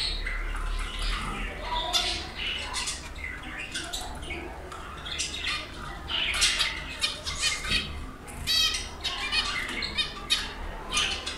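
Several small caged birds calling over one another in many short chirps and squeaks, with a quick trill about two-thirds of the way through.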